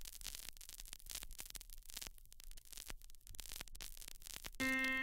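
Faint crackling static and hiss over a steady low hum, like the surface noise laid under a trip-hop intro. Sustained keyboard chords come in near the end.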